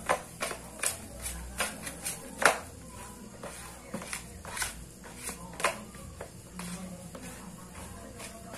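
Hands mixing and squeezing crumbly flour-and-margarine bait dough in a plastic basin: irregular soft knocks and clicks, a few each second, the sharpest about two and a half seconds in.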